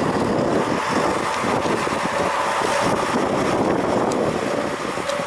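Diesel trains' engines running as they stand at the platform: a steady rumble, with wind buffeting the microphone.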